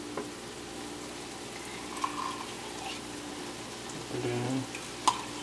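Grated carrots and onions sizzling steadily in a frying pan, with a spatula scraping and tapping as tomato paste is stirred in. There is a sharp clink near the end.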